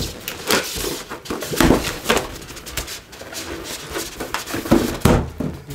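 Inflated latex balloons being handled and tied together, rubber rubbing against rubber in irregular rustles and squeaks.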